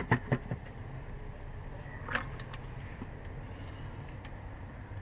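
A handful of sharp metallic clicks and clinks of hand tools on car parts, three right at the start and three more about two seconds in, over a steady low hum.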